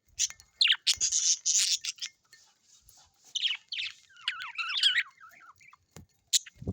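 Parrots calling: about two seconds of harsh squawks, then a run of chattering, warbling notes, with a couple of sharp clicks near the end.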